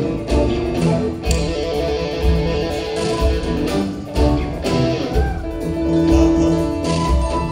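Live rock band playing an instrumental passage, guitars over bass and drums with a steady pulse.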